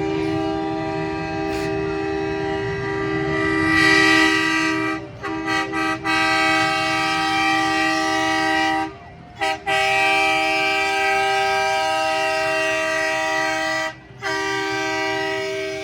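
Multi-chime air horn, a train-style chord horn, sounded in long blasts. Three quick toots come about five seconds in, with short breaks near nine and fourteen seconds. An engine rumbles low underneath.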